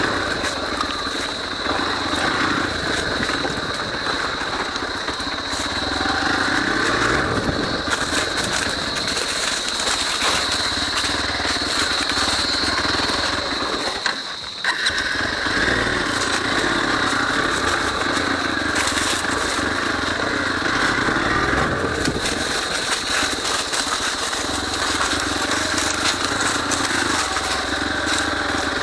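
Hero XPulse 200 4V's 200cc single-cylinder engine running as the motorcycle is ridden off-road, its pitch rising and falling with the throttle. About halfway through the sound drops out for a moment, then picks up again.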